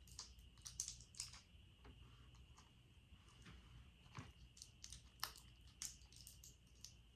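Faint, scattered crunches and clicks of candy-coated chocolates being chewed, over a faint steady background whine.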